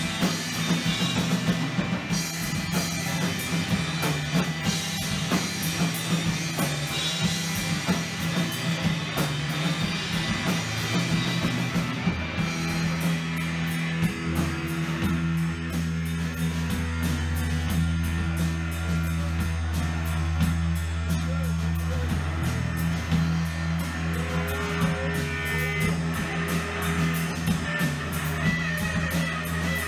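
Instrumental rock music with drum kit and guitar. A deep sustained bass note comes in about halfway through.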